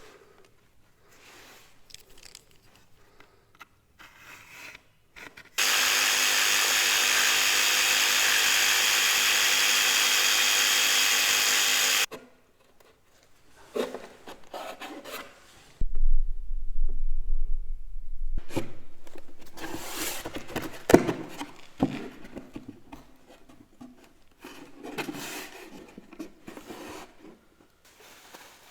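A power tool runs steadily for about six seconds, then stops suddenly; afterwards there is a short low rumble and scattered knocks and rubbing of wood being handled.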